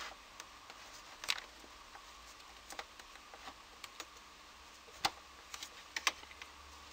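Faint scattered clicks and taps of a laptop charger's barrel plug and cable being handled and pushed into the laptop's power socket, with a few sharper clicks about a second in and around five and six seconds in.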